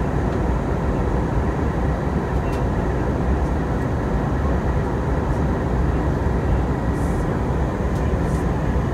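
Steady in-flight cabin noise of an Airbus A320 heard from a window seat: a constant rush of engines and airflow, heaviest in the low end. There are a few faint clicks.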